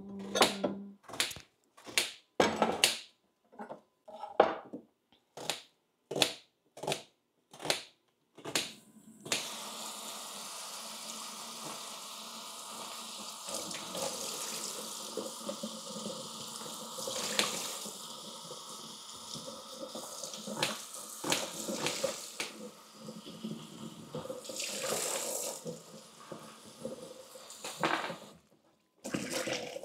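Knife chopping strawberries on a cutting board: a quick, uneven run of sharp taps. About nine seconds in, a steady rush of running tap water takes over, swelling now and then.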